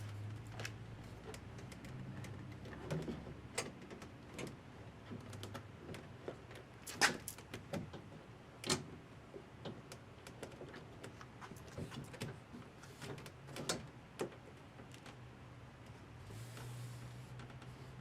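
Scattered clicks and knocks of parts and tools being handled, with a low hum that comes and goes.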